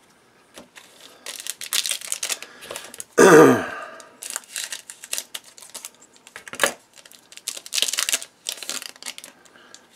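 Foil trading-card pack crinkling as it is handled and cut open with scissors. About three seconds in comes one loud cut that drops in pitch, then a click and more crinkling as the cards are pulled from the wrapper.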